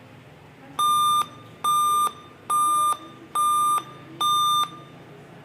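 Dell laptop beeping: five steady, high electronic beeps of about half a second each, roughly one a second.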